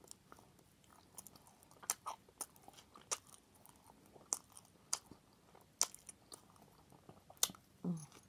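Close-up chewing of a turkey and bacon sandwich: wet mouth smacks and clicks at irregular intervals, with a short hummed 'mm' near the end.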